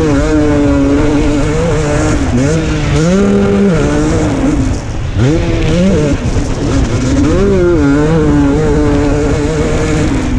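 KTM 250 SX two-stroke single-cylinder motocross engine ridden hard, heard from the bike's onboard camera. The revs climb and drop again and again as the throttle is opened and closed through the gears.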